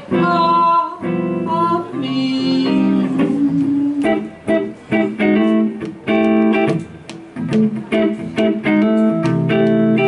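Live singer and electric guitar: a woman's sung line gliding over guitar chords in the first couple of seconds, then the electric guitar carrying on alone with short, separated jazz chords.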